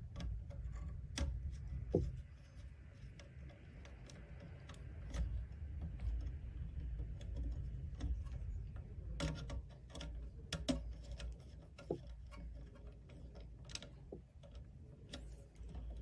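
Scattered light clicks and ticks of wire ends being handled and a small screwdriver tightening terminal screws on a keypad's circuit board, with a cluster of clicks about two-thirds of the way in, over a low steady room hum.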